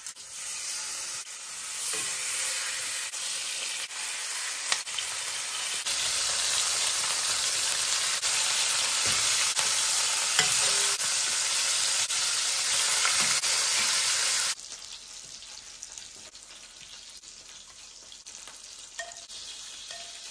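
Bone-in, skin-on chicken thighs searing in hot olive oil: a loud, steady frying sizzle that grows louder in steps as more thighs are laid in the pan. About fourteen seconds in it cuts off sharply, leaving a much quieter background.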